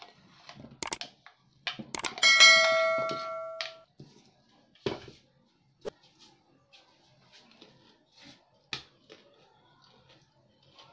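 A ceramic dish knocked on the table, ringing with a clear bell-like ding for about a second and a half, about two seconds in. Scattered light knocks and scrapes of a plastic spatula and dishes come before and after it.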